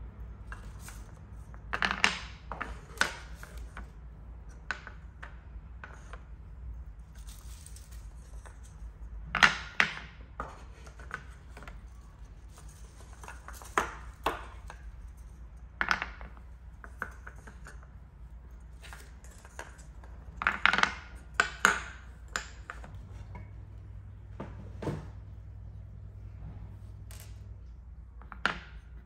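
Solid linden-wood cups and balls clicking and knocking as they are set down on a marble tabletop and dropped into a wooden bowl. Scattered sharp wooden clicks, several in quick clusters of two or three.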